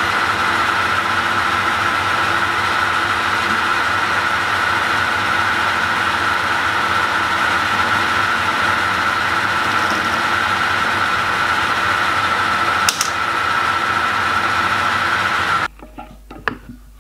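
Small metalworking lathe running, its spinning chuck turning a bar while a 1.5 mm tapping drill in a tailstock drill chuck drills the end: a steady whir with a high whine, and one sharp click partway through. The machine sound cuts off suddenly about a second before the end, leaving a few faint clicks.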